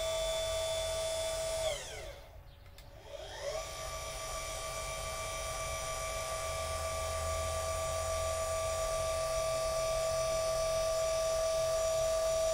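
Celestron CGX-L equatorial mount's motor slewing in right ascension with a steady high whine. About two seconds in it winds down to a stop, and after a short pause it winds back up and runs steadily in the other direction, winding down again near the end. The mount is balanced and draws about the same current both ways.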